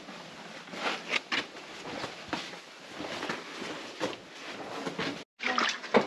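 Footsteps scuffing on the sandy, rocky floor of a sandstone slot canyon, with a few louder steps. Near the end the sound cuts out for a moment and gives way to splashing in shallow muddy water.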